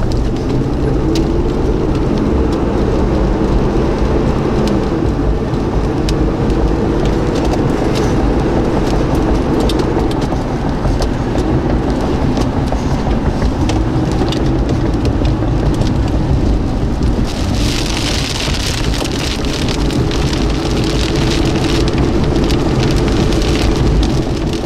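Car driving in heavy rain, heard from inside the cabin: engine and road noise with the engine note rising and falling, and raindrops ticking on the windshield and roof. About two-thirds through, the hiss of rain and wet road grows much louder.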